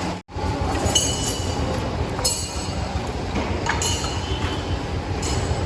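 Metal tools and parts clinking as a motorcycle's rear wheel is taken off: four or five light, ringing metallic clinks over a steady low workshop hum.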